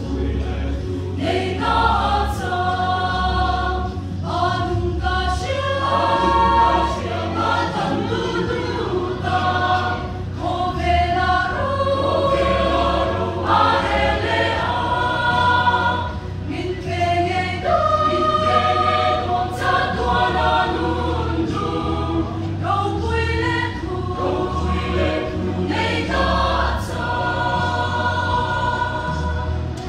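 Mixed choir of women and men singing together, holding notes in several voices at once.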